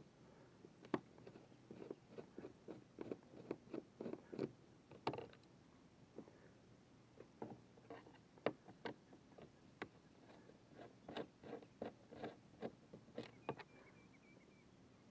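Faint, irregular clicks and light taps of small screws being backed out with a screwdriver and set down on a plastic kayak deck.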